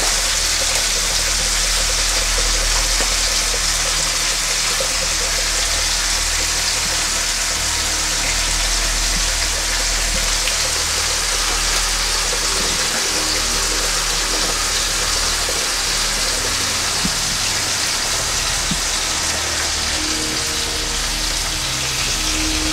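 A pot of fish cooking, with a steady sizzling hiss, and background music playing underneath with a pulsing bass.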